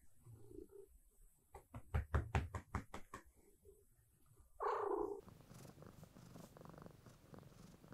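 A quick run of about a dozen soft knocks, about seven a second, then a short louder burst near the middle, followed by a domestic cat purring steadily.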